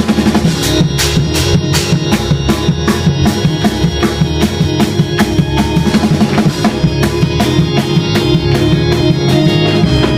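Live church band playing an up-tempo praise break: a drum kit keeping a fast, steady beat over bass and held keyboard chords.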